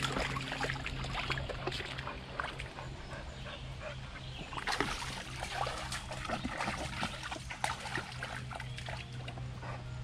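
Splashing and sloshing in shallow creek water with many small clicks and cracks of twigs, over a steady low hum.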